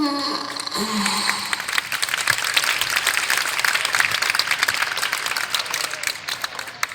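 A short falling vocal sound at the start, then several seconds of hand clapping that fades out near the end.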